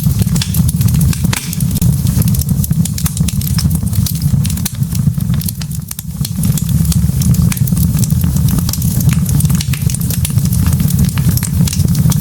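Log fire burning in a fireplace: dense, irregular crackling and small pops of burning wood over a steady low rumble of the flames, easing briefly around the middle.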